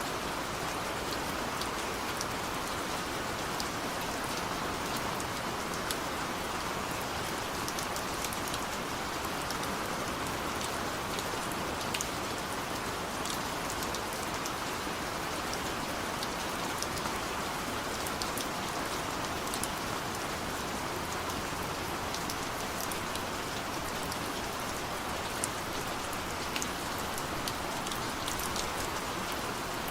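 Heavy rain falling steadily in a forest: an even hiss with many individual drops ticking through it.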